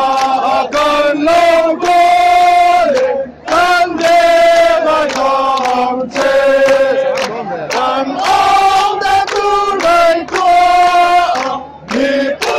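Football supporters in the stand singing a chant together, in phrases of held notes broken by short pauses every few seconds.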